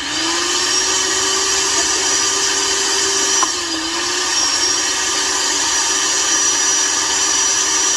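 Cheap countertop blender starting up and running on a thick frozen-fruit smoothie: a steady motor hum with a high whine. About three and a half seconds in its pitch sags briefly and recovers as the load shifts, the blender struggling with the hard frozen fruit.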